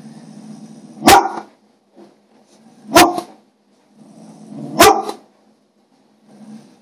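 A large dog barking to beg for food: three loud single barks about two seconds apart, each led in by quieter low grumbling.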